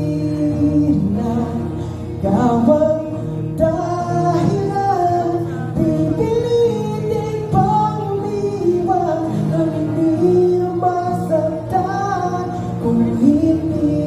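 A man singing a slow song into a microphone with acoustic guitar accompaniment, his melody rising and falling in long held phrases over sustained chords.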